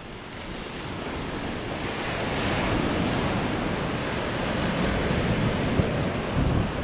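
Small ocean waves breaking and washing up over a sandy shore: a steady surf hiss that builds over the first couple of seconds and holds. Wind rumbles on the microphone.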